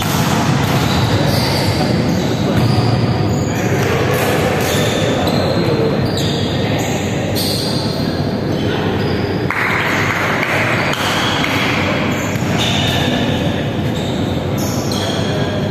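Indoor volleyball game in an echoing sports hall: players' voices and calls, with thuds of the ball being hit and bouncing and shoes squeaking on the wooden court.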